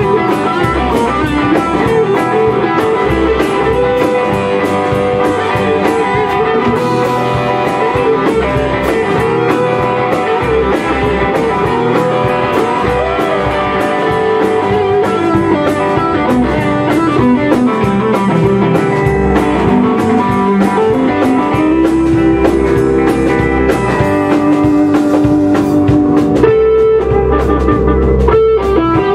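A rock band playing live: electric guitars through amplifiers over a Tama drum kit, with held and bending lead guitar notes.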